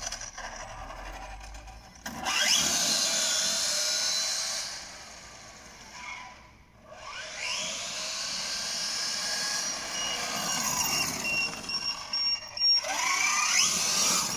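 Electric RC car's motor and drivetrain, geared with a long pinion on a 4S battery, whining and rising in pitch as the car accelerates in three runs, about 2 s, 6.5 s and 13 s in.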